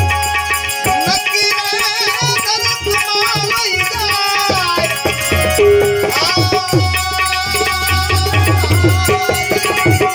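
Instrumental interlude of a Gujarati santvani bhajan: tabla drumming under a gliding melodic lead instrument, with no singing.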